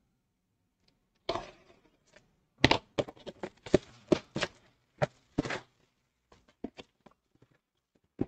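Clear plastic shrink-wrap crackling as it is pulled off a cardboard model kit box. The crackles come as a rapid run of short, sharp bursts, then thin out to a few faint ticks near the end.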